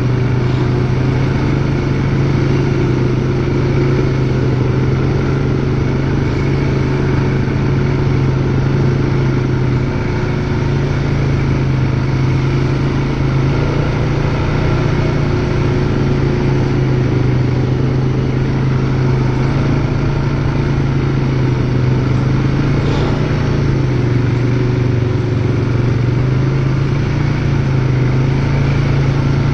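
ATV engine running steadily at low speed, its pitch shifting slightly up and down with the throttle.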